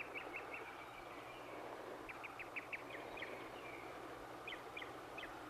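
Quiet outdoor nature ambience: three quick runs of short high chirps, a few to a run, over a faint steady hiss.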